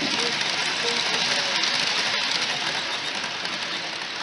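Model freight train of hopper wagons running past on the track, a steady rushing rattle of wheels on rails that eases slightly near the end as the wagons go by.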